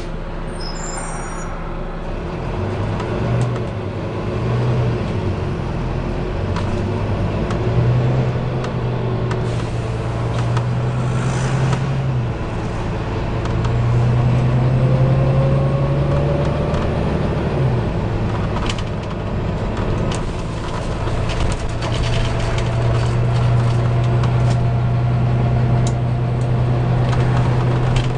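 Volvo B9TL bus diesel engine heard from the passenger cabin on the move, its note stepping up and down through the gear changes. Short hisses of compressed air are heard now and then; the bus makes these frequent air-release noises.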